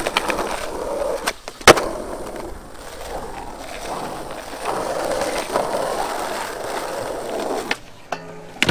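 Skateboard wheels rolling on pavement, with one loud sharp clack of the board about a second and a half in and a few lighter clacks near the end.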